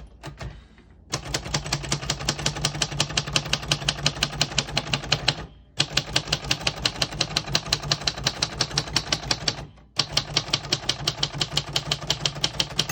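1978 Royal Sabre manual portable typewriter being typed on: quick, even keystrokes, about six a second, in three runs with short pauses between them, the keys striking cleanly without skipping or sticking.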